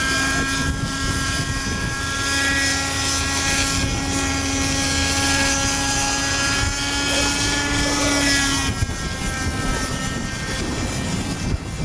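Raptor RC helicopter on floats running at a steady pitch on the water, its engine and rotor holding one tone. About nine seconds in the steady tone breaks off as it lifts off the water.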